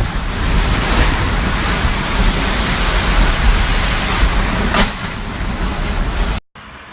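Typhoon wind and rain, the gusts buffeting the microphone with a heavy rumble, and a brief sharp crack about five seconds in. The sound cuts off abruptly near the end to a much quieter scene.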